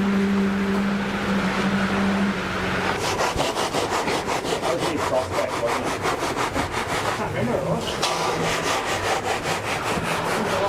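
Fast, rhythmic back-and-forth scraping of a hand tool being worked over wet concrete. A steady machine hum, likely the concrete pump's engine, runs under it and stops about two seconds in. The scraping starts about three seconds in and pauses briefly a little past the middle.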